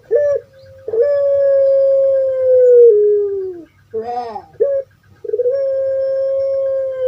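Puter pelung dove (Streptopelia risoria) calling: two long, drawn-out held notes, each dropping in pitch at the end, with a short warbling call between them.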